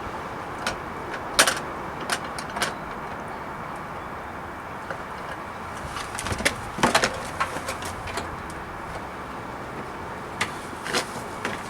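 Scattered light clicks and knocks of wire and plastic connectors being worked through the car body, with a dense run about six to seven seconds in, over a steady background hiss. The clicks come from feeding a trailer wiring harness with a wire coat hanger as a fish wire.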